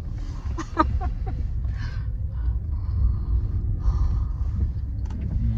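Steady low rumble of a car's engine and road noise heard inside the cabin while driving, with a few brief faint vocal sounds from the driver.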